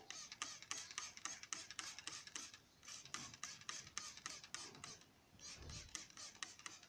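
Faint, rapid dry crackling and scraping of cocopeat potting medium being spread over sown seeds in a plastic seed tray, with a dull thump a little before the end.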